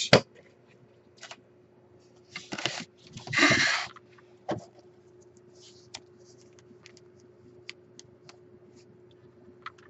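Handling noise as a box of Magic cards is rummaged: two short rustling, sliding bursts a couple of seconds in, the second the louder, then scattered light clicks and taps.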